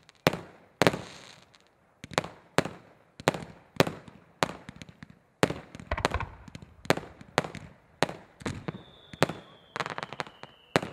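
Fireworks display firing in rapid succession: a volley of sharp bangs, about two a second, each trailing off in a short echo. Near the end, a thin whistling tone glides slowly downward over the bangs.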